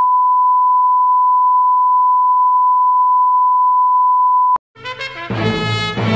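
A single steady electronic beep tone, one pure pitch held loud for nearly five seconds and cut off sharply, like a censor bleep or test tone. Brass-led music starts near the end.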